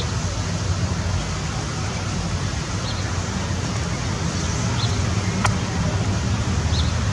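Steady low outdoor rumble of background noise, with a single sharp click about five and a half seconds in.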